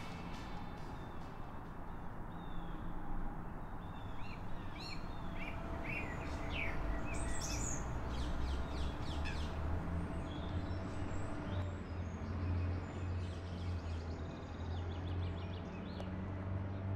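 Small birds chirping in short, quick calls, busiest in the first half, over a low steady rumble that grows stronger about halfway through.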